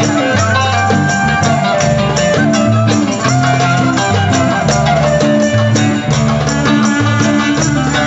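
Live Armenian folk band playing dance music: a clarinet carrying held melody notes, a plucked lute and a hand-held frame drum keeping a steady beat over a moving bass line.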